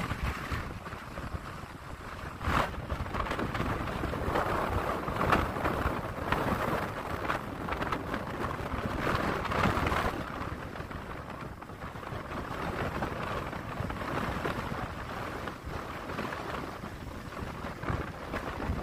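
Gusty wind from a hurricane's outer bands buffeting the microphone, with ocean surf breaking underneath. The rush rises and falls unevenly as the gusts come and go.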